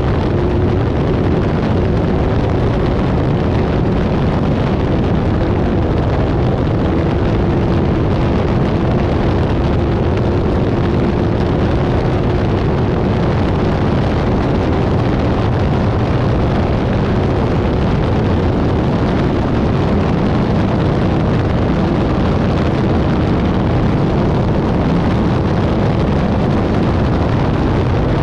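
Off-road race vehicle running hard, a loud steady engine drone with heavy low noise and a faint held tone, no let-up.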